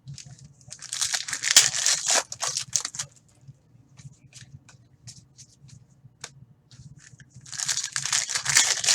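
Trading card pack wrappers crinkling and tearing as packs are ripped open: two bursts of crackly rustling, one about a second in and one near the end, with small clicks and rustles of card handling between.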